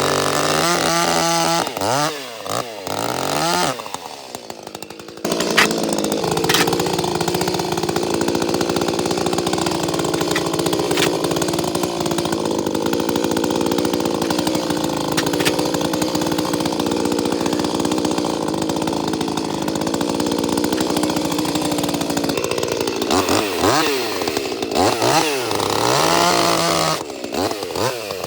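Ported Echo CS-310 two-stroke chainsaw revving up and down in blips, dropping back near idle about four seconds in. It then runs at steady pitch under load, cutting through a log, for about seventeen seconds, and goes back to rising and falling revs near the end.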